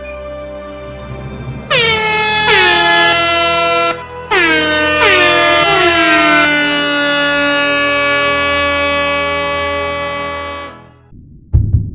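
MLG-style air horn sound effect blasted repeatedly, a string of overlapping horn blasts that each begin with a quick drop in pitch, over soft background music. The horns cut off abruptly about eleven seconds in, followed by a heavy low drum hit.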